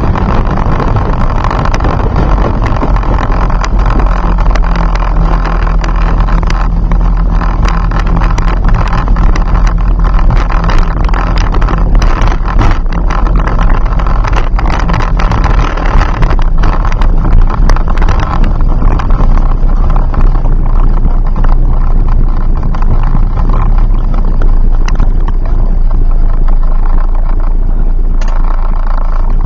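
Engine of a turbocharged Ford Focus ZX3, a four-cylinder, running with a steady drone, heard loud from inside the cabin along with road and wind noise.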